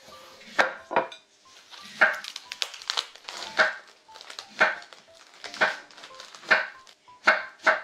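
Kitchen knife slicing Korean radish (mu) into thin strips on a wooden cutting board, a crisp cut about once a second, over faint background music.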